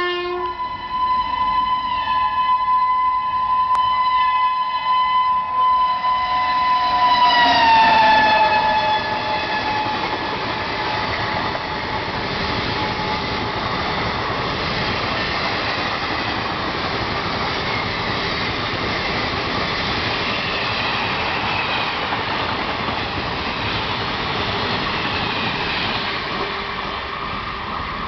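WAP-7 electric locomotive's horn held in one long blast, its pitch sliding down about seven seconds in as the locomotive passes. Then the steady noise of the express train's coaches running past at speed.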